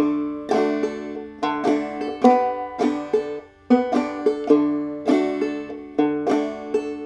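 Banjo played clawhammer style in aDADE tuning: a slow backup phrase of struck single notes and brushed strums, each ringing on. The playing dips briefly about three and a half seconds in.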